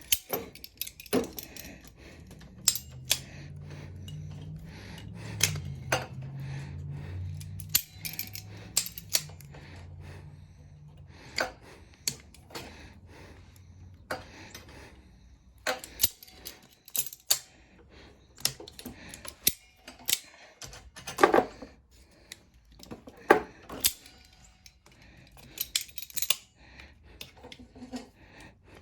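Irregular clicks and clinks of small metal carburetor parts and hand tools being handled and fitted during reassembly. A low steady hum is heard from a couple of seconds in until about ten seconds in.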